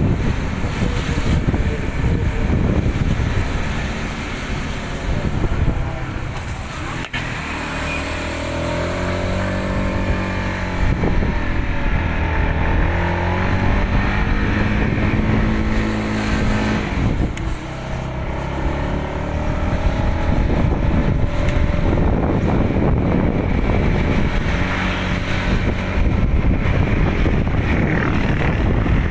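Motorcycle engine running under way, its pitch rising and falling with the throttle for several seconds in the middle, over a steady rush of wind noise on the microphone.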